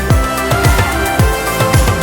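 Background electronic music with a steady beat and deep kick drum.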